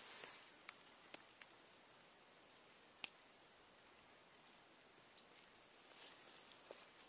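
Near silence, broken by a few faint, scattered clicks and soft rustles of hands handling a fishing hook and line, the clearest about three seconds in.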